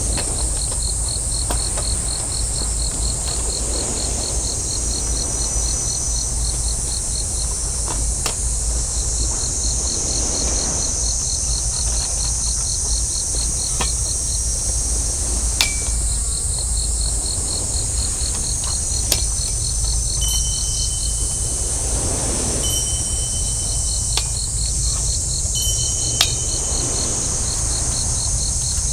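Outdoor insect chorus: a steady high hiss with trains of rapid, evenly spaced chirps that start and stop every few seconds, over a steady low rumble of wind on the microphone. A few sharp clicks come from a pop-up canopy frame being put up.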